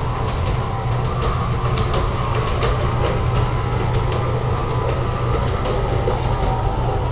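LGB G-gauge model train running on track laid directly on a hardwood floor: a steady whirring hum, with frequent light clicks of the wheels over the rail joints.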